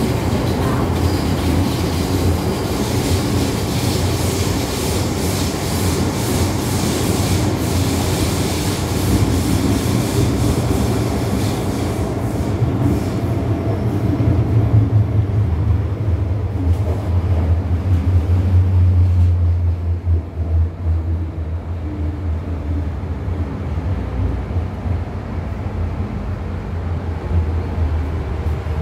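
MTR M-Train heard from inside the car as it runs through an Island Line tunnel: a steady rumble of wheels on rail with a strong low hum. The high rushing noise fades about two-thirds of the way through as the train slows.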